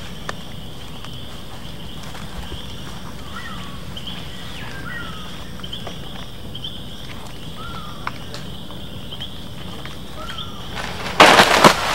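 Tropical forest ambience: a steady high insect drone with several short falling bird chirps. About a second before the end, a sudden loud crackling crash of breaking branches and leaves.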